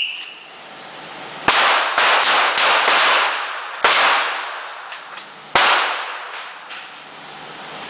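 Handgun shots from several shooters firing two rounds each on a whistle signal, in a ragged string of about eight sharp reports spread over four seconds. Each shot leaves a long, fading echo.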